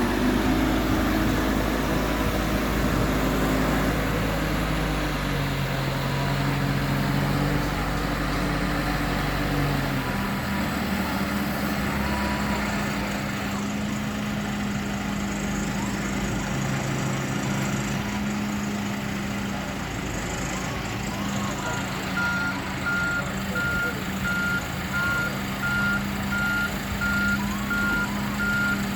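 A heavy vehicle's engine running, its pitch shifting over the first third, then a reversing alarm beeping at a steady even rate from about three-quarters of the way through.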